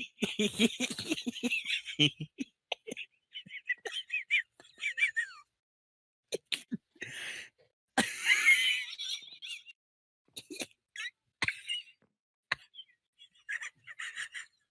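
A man wheeze-laughing: fits of high-pitched, breathy wheezes and gasps, broken by short silences.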